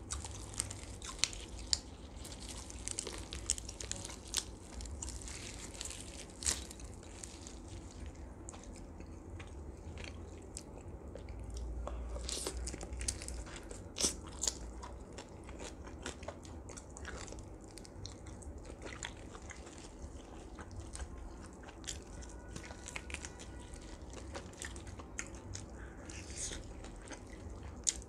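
Close-miked eating of roast duck: chewing and biting meat off the bone, with many sharp mouth clicks and smacks throughout.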